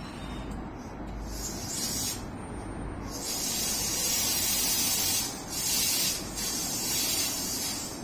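Compressed air hissing from the underfloor air equipment of a stopped Meitetsu electric commuter train. It comes in bursts: a short one, a long one of about two seconds, then two short ones, over the train's steady low hum.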